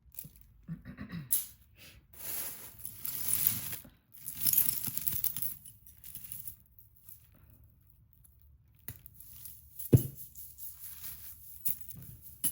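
Handling noises: two spells of rustling and crinkling, like packaging or a bag being handled, then a single sharp click about ten seconds in, with a few softer rustles around it.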